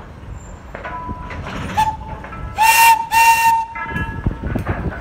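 Whistle of a Thomas the Tank Engine replica locomotive: a short toot, then two loud, longer blasts in quick succession, over the low rumble of the engine.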